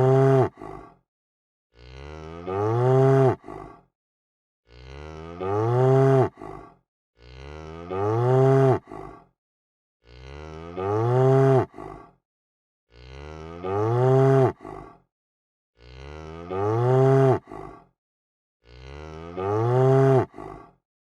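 A cow mooing, the same call repeated about seven times, one every three seconds or so. Each moo starts quietly, swells loud, and breaks off sharply.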